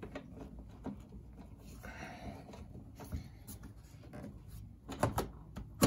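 Hands fitting a knob onto an ATV's low-gear shift lever: a brief rubbing sound about two seconds in, then a few soft clicks and knocks, bunched near the end.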